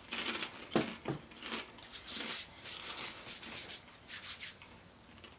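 Irregular dry rustling and crinkling of a microwave pork rind bag being handled, with a couple of sharper scrapes about a second in.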